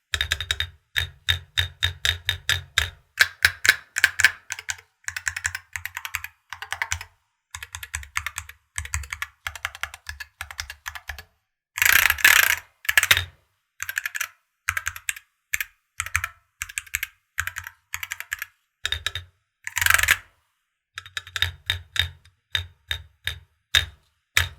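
Typing on a Varmilo Muse65 keyboard with Gateron/Varmilo magnetic switches and PBT keycaps: a steady stream of quick keystrokes, with two louder flurries, about halfway through and again a little later. The reviewer calls this keyboard's sound overly loose.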